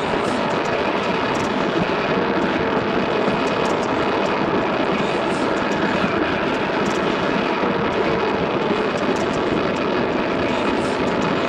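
Industrial noise music: a dense, steady wall of harsh electronic noise that churns without a beat or clear tones.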